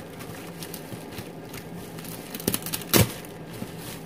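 White plastic mailer bag crinkling as it is handled and pulled open, with a few small crackles and one sharp snap about three seconds in.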